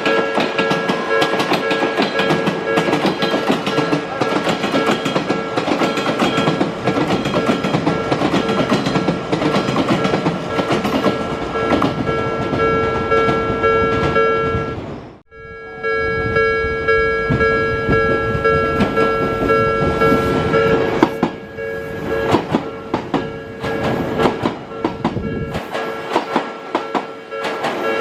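Level crossing warning bell ringing over an Odakyu train running through the crossing, its wheels clattering on the rails. The sound breaks off for a moment about halfway, and the bell falls silent after about three-quarters of the time while the wheel clatter carries on.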